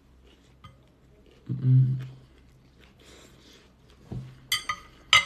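A short low closed-mouth hum about a second and a half in, then a few sharp, ringing clinks of metal cutlery against a ceramic plate near the end.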